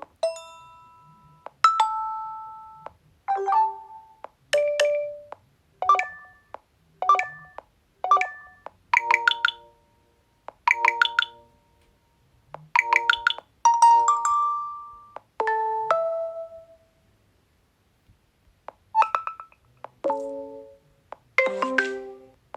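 Nokia 6.1 notification tones previewed one after another: over a dozen short electronic chimes and jingles, each a second or so long, with short gaps between and a longer pause a little past the middle.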